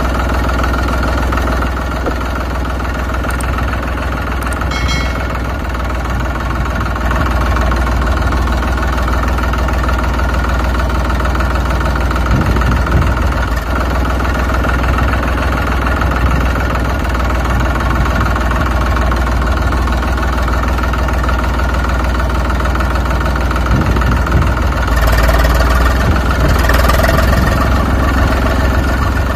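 Tractor engine sound running steadily at idle, a continuous low drone, getting a little louder and brighter near the end. A brief high chirp comes about five seconds in.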